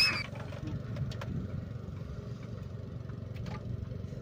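A fishing rod cast: the line whizzes off the reel in a sharp rising swish at the very start, the loudest sound here. After it comes a steady low rumble with a few faint clicks.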